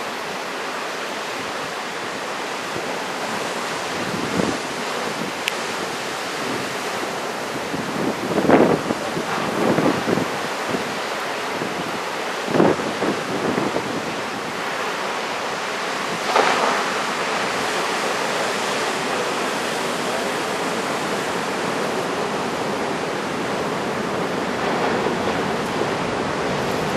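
Steady roar of heavy surf from a typhoon swell breaking offshore, with wind blowing on the microphone and a few short louder gusts partway through.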